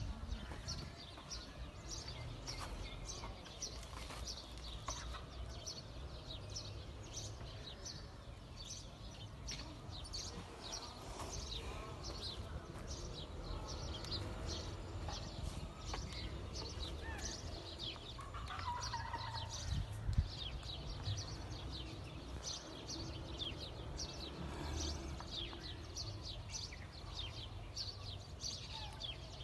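Small birds chirping constantly, many short high chirps overlapping one another, over a steady low rumble. A single thump stands out about twenty seconds in.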